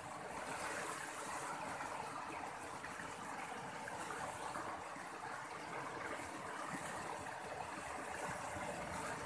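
Fast-flowing river rushing steadily, with white water breaking around a tree trunk standing in the current.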